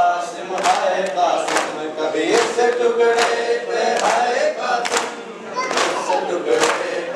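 A group of men chanting a Muharram lament (nauha) in unison, with rhythmic chest-beating (matam), one sharp slap a little under every second.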